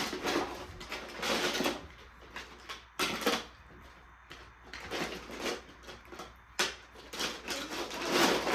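Plastic marble run pieces clicking and clattering, in several separate bursts a second or two apart.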